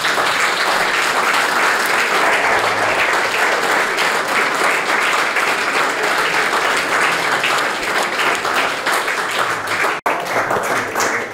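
Small audience applauding, many hands clapping steadily, with a momentary dropout near the end.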